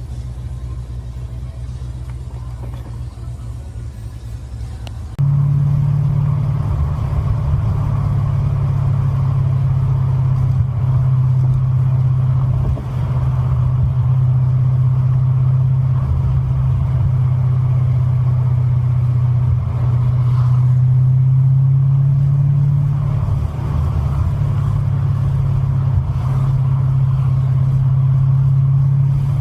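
Corvette V8 running steadily on the road, a low drone of engine and drivetrain. About five seconds in it suddenly gets louder and stays there.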